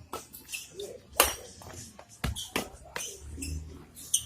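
Badminton racket strings hitting a shuttlecock in a rally: a few sharp cracks, the strongest about a second in, two close together past the halfway point and one near the end.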